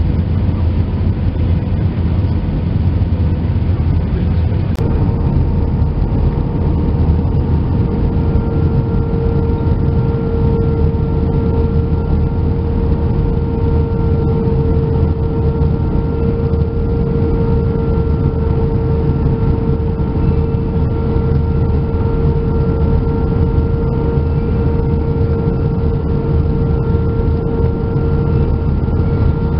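Airbus A319 cabin noise: a steady low rumble of engines and airflow with a whining engine tone that strengthens, gaining a higher whine about eight seconds in. A single click a few seconds in.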